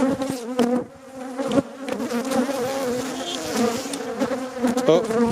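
Swarm of agitated honeybees buzzing close around the camera, a wavering drone of many wingbeats with occasional sharp ticks. The bees are defensive, a hive that gets angry and stings.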